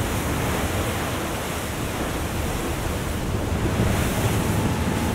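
Stormy open sea: wind and heavy waves in a steady, full rush of noise with a deep low rumble.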